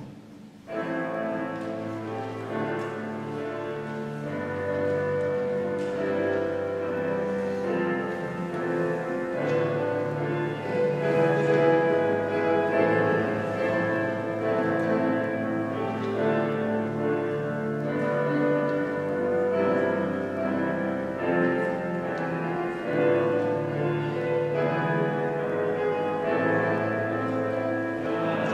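A keyboard instrument, organ-like, playing slow held chords over a bass line that changes every couple of seconds, starting about a second in. It is the instrumental lead-in to a Taizé chant.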